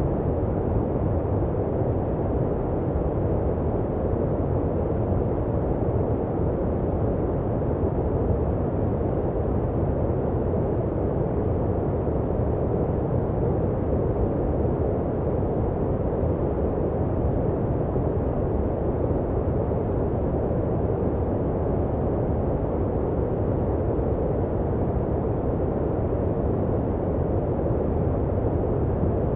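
Continuous white-noise sleep track: a steady, even rush with its weight low down, deep and dull rather than hissy.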